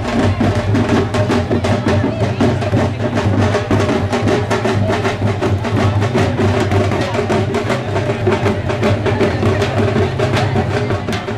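Marching brass band playing: sousaphone, saxophones, trumpets and trombone over a quick, steady beat on a dhol and a snare drum.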